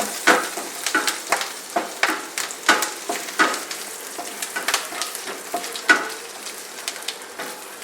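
Chopped ginger, garlic and whole spices sizzling in hot mustard oil and butter in a frying pan, with a spatula scraping and clicking against the pan as they are stirred, a stroke roughly every half second.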